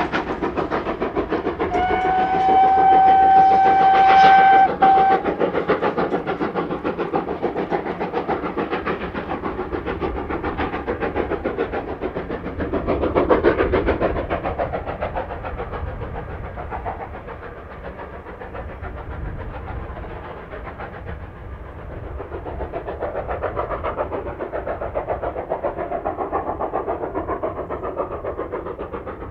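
GWR Hall-class steam locomotive 6960 Raveningham Hall working a passenger train, giving one long, steady whistle blast starting about two seconds in and lasting some three seconds. The train's running sound, with a rhythmic beat, carries on after it, rising and falling as the train draws away.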